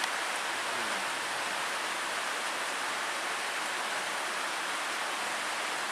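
Steady, even outdoor hiss with no distinct events, and a faint voice briefly about a second in.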